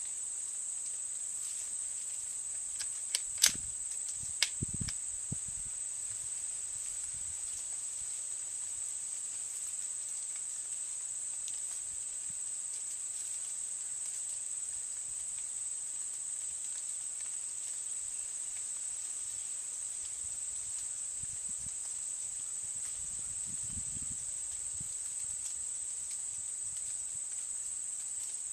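Steady high-pitched chirring of insects, crickets by the sound of the tagging, with a few sharp clicks about three to five seconds in.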